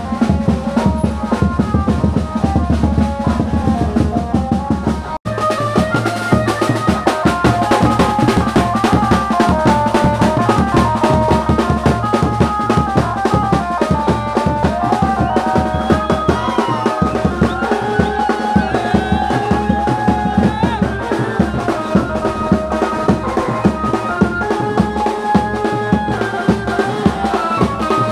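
Loud music: after a sudden break about five seconds in, procession music with dhol drums beating a fast, dense rhythm under a wavering melody.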